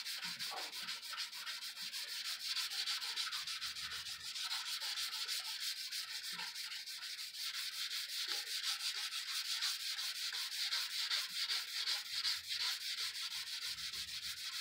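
P500 sandpaper on a hard acrylic block being rubbed dry across cured automotive clearcoat in fast, even back-and-forth strokes, several a second, with a high rasping hiss. This is the stage that flattens a clearcoat run and takes out the 320-grit scratches.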